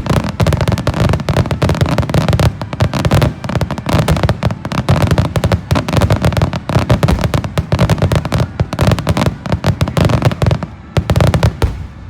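A starmine fireworks barrage: dense rapid-fire booms and crackling shell bursts overlapping without pause, stopping abruptly near the end after a few last bursts.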